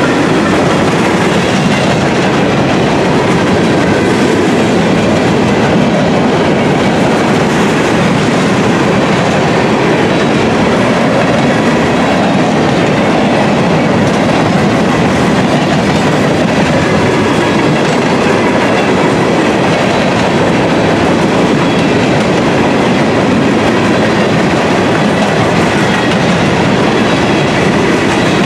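Freight train of steel gondola cars rolling steadily past, its wheels clattering and rumbling on the rails.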